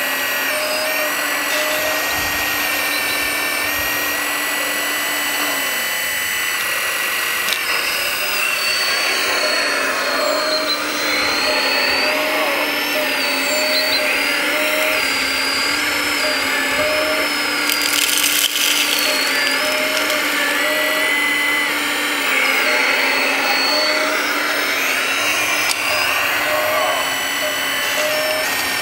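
Electric motors and gears of 1:14.5 scale RC construction models whining. Several steady tones step and glide up and down in pitch as the machines speed up and slow down. A short rush of hiss comes about two-thirds of the way through.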